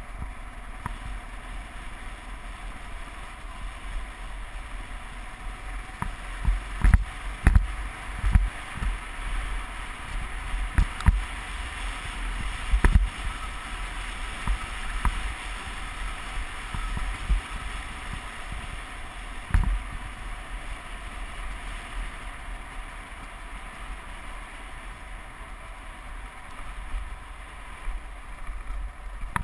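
Motorcycle riding along a gravel dirt road, heard from an on-board camera: wind rushing over the microphone over a steady low rumble. Sharp knocks and thumps come in a cluster through the middle as the bike jolts over bumps and stones.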